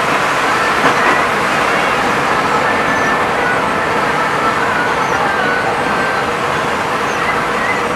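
Steady cabin noise of a moving bus: engine and tyres running on a wet road.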